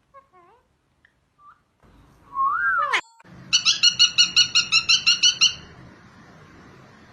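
Parrot calling: a few faint chirps, then a loud whistle that rises and falls, followed by a rapid trill of about six short, repeated notes a second lasting about two seconds.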